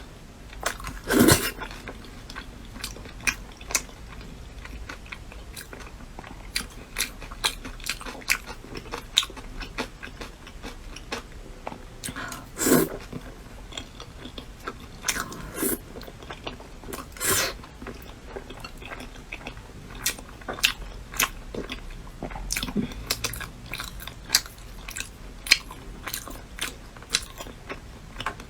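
A person eating: chewing and crunchy bites, many short sharp crunches and clicks at an uneven pace, a few of them louder.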